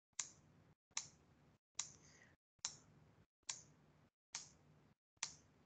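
Faint, evenly paced single clicks of a computer keyboard key being tapped, about one a second, seven times, each tap stepping the gdb debugger one instruction on.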